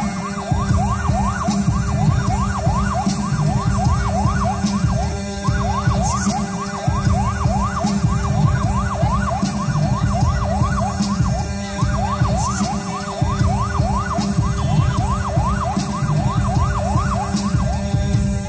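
Electronic music with a low droning bass under a repeating rising synth sweep, about three quick upward whoops a second, in three runs with brief breaks between them.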